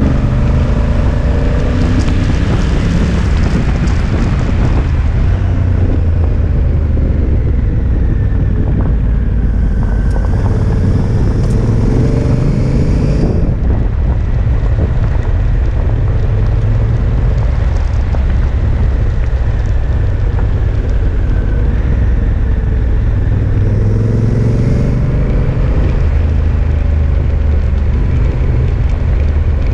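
2016 Honda Africa Twin's parallel-twin engine running under way, its pitch rising and falling several times as it accelerates and eases off, over a heavy low wind rumble on the camera microphone. Tyres crackle on gravel for the first few seconds.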